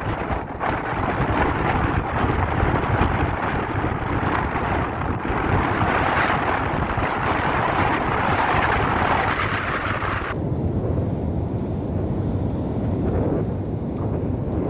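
Strong wind buffeting the microphone over the noise of a rough sea. A higher hiss cuts off suddenly about ten seconds in, leaving the low rumble.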